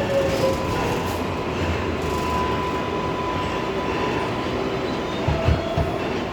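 R188 subway car on the 7 line running, heard from inside the car: a steady rumble with a steady high whine, and a few low thumps about five seconds in.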